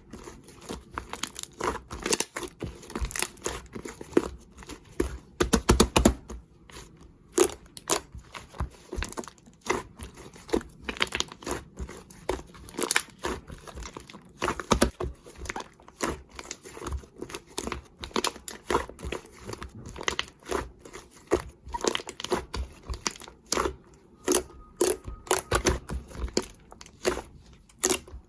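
Slime being squished and stretched by hand, making a dense run of irregular crackling, popping clicks.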